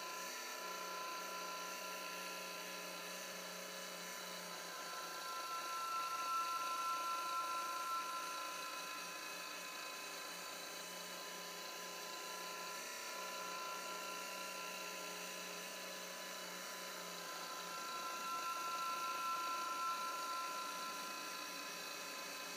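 Small electric motor of a turntable whining steadily with a faint hum, swelling louder twice about twelve seconds apart.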